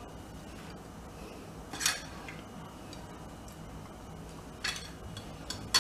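A few light clicks and taps of fingers against the plate while picking up loose chocolate shavings, about two seconds in and again near the end.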